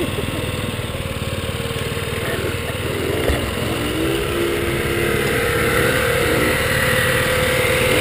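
Small scooter engine running at low speed with a steady throb, riding slowly and pulling up to a stop, with a brief rise and fall in pitch about halfway through.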